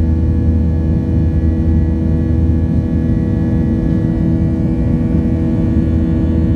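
Boeing 737-900ER cabin noise during the climb after takeoff, heard from a window seat beside the wing: the CFM56-7B turbofans running at climb power as a steady low rumble and rush of air, with several steady whining tones over it.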